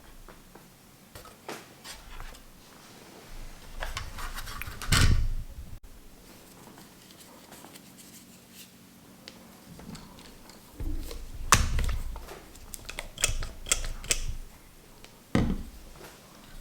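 Scattered clicks, taps and knocks of hands working on a PS3 Slim console during its disassembly, with two heavier thumps about five seconds in and around eleven to twelve seconds.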